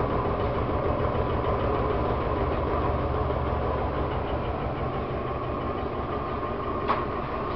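GE washing machine running with a steady loud rumble and rattle, with one sharp click near the end. The owner says the noise is not down to the amount of laundry: it is the same even with a single napkin inside, so it points to a fault in the machine itself.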